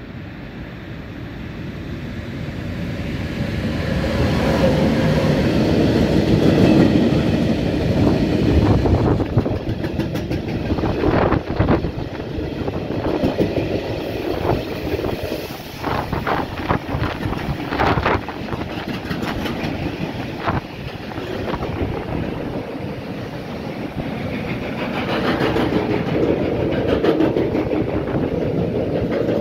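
Freight train of flat wagons passing at speed: the rolling rumble grows over the first several seconds as it arrives, then holds steady. From about ten seconds in, sharp clicks and clatter come irregularly as the wheelsets cross rail joints.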